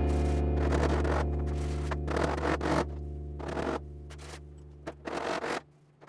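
Short scraping strokes over a steady low hum that slowly fades away.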